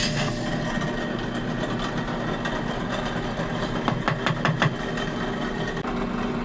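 Small electric power tool running steadily with a held hum, used to widen a guitar body's neck pocket so an oversized neck will fit. A few sharp clicks come about four seconds in.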